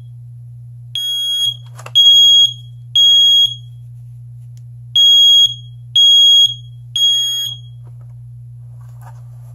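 First Alert SA320 smoke alarm sounding its test alarm after the test button is pressed: two sets of three loud, high beeps, each about half a second long and a second apart, with a gap of about two seconds between the sets. This is the standard three-beep alarm pattern, and it shows that the alarm's horn works on the new batteries. A low steady hum runs underneath.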